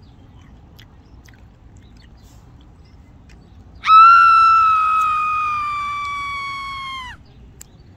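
A man's high falsetto squeal, starting about halfway through, held for about three seconds while it slowly falls in pitch and fades, then breaks off. It is a reaction to a sharply vinegary dipping sauce.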